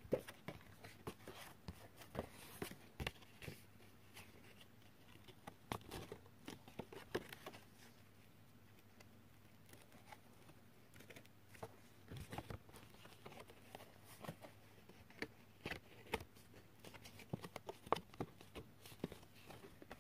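Paper cards being handled and shuffled on a table: scattered light rustles, taps and clicks at an uneven pace, calmer for a few seconds midway.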